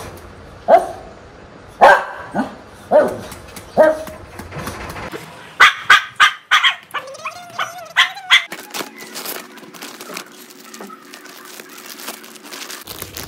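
Small long-haired dog, a Shih Tzu, barking: loud single barks about a second apart, then a quicker run of barks mixed with a wavering whine. The barking stops about two-thirds of the way in, leaving faint rustling.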